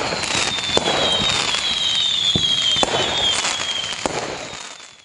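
Fireworks: irregular sharp bangs over steady crackling, with several high whistles gliding slowly down in pitch. It fades out near the end.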